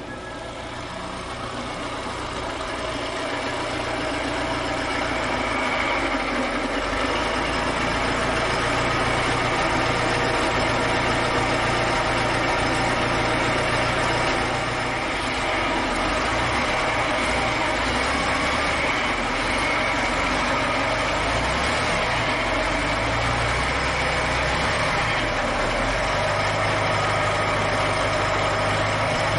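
Ford Model T four-cylinder flathead engine running at idle, a little rough and noisy. It grows louder over the first few seconds, dips briefly about halfway through, then runs steadily. The owner puts the roughness down to fouled spark plugs and piston rings that have not yet sealed.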